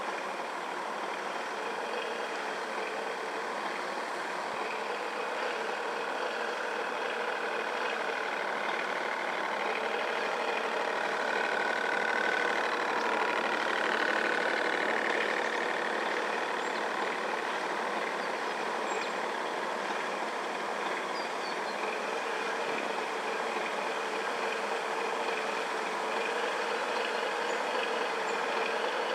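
Radio-controlled model boats running on the water, their small electric motors giving a steady whine, with a higher whine that rises and falls about midway.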